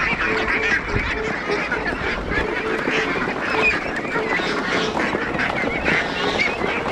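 A flock of domestic waterfowl calling continuously, many birds honking and quacking over one another at once.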